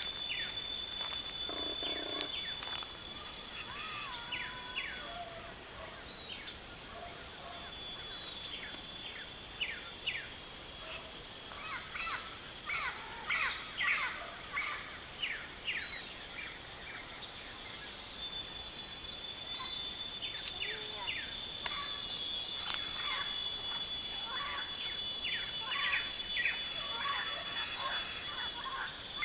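Many small birds chirping in quick short falling notes, including blue-black grassquits (tizius), with a sharp high call standing out every few seconds. A steady high insect drone runs underneath.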